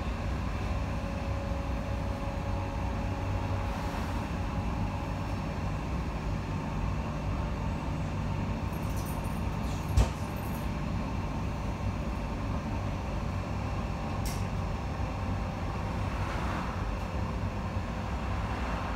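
Light-rail tram heard from inside the passenger car while running between stops: a steady rumble of the wheels on the track with a faint steady hum. One sharp knock about halfway through.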